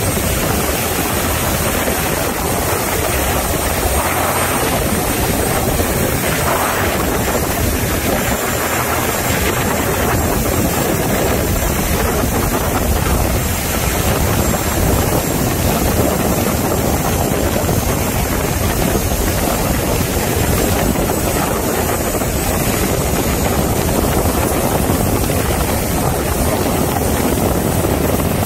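Motorboats running at speed side by side: a steady engine drone mixed with rushing water and wind. A faint high whine sits above it and shifts pitch a couple of times.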